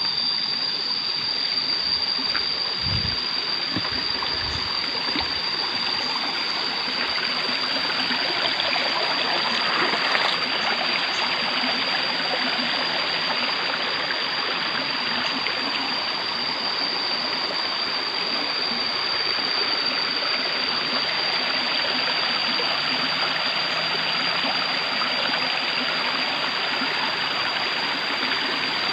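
River water running steadily, with a constant high-pitched whine above it. A few low thumps come about three to five seconds in.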